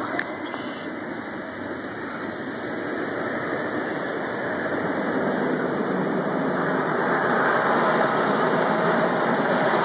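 Mean Streak wooden roller coaster train rumbling along its wooden track, growing louder as it comes nearer.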